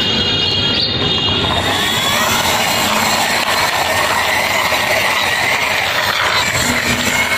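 Hard plastic wheels of a toy truck rolling and grinding over rough concrete as it is pushed along by hand, a steady scraping rumble.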